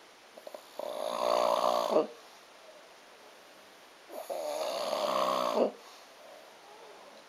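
A person snoring: two drawn-out snores a little over three seconds apart, each lasting well over a second, with quiet breathing between them.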